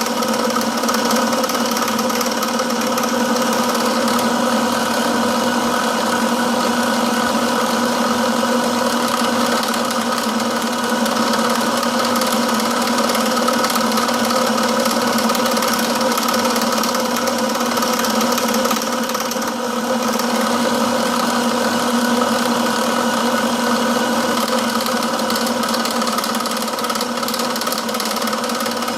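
Milling machine running steadily, a continuous machine hum with a hiss over it that dips briefly about twenty seconds in.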